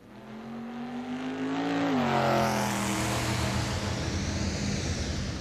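Arrma Fireteam 6S RC car at full throttle: its brushless electric motor whines, rising in pitch as it speeds towards the camera, then the pitch drops as it passes about two seconds in, with tyre hiss on the tarmac.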